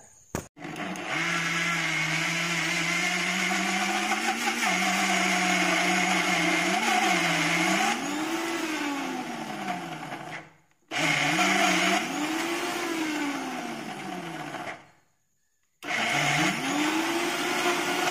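Electric mixer grinder (mixie) with a stainless-steel jar grinding a thick mix of roasted chickpea powder, sugar, cocoa and oil. It runs in three stretches with two brief stops between, and its motor pitch rises and falls several times within the runs as the thick mix loads it.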